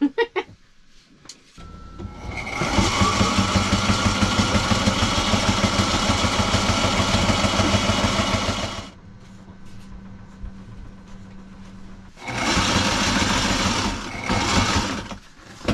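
Electric sewing machine stitching fabric. A long fast run of several seconds is followed by a pause with only a low motor hum, then two shorter runs near the end.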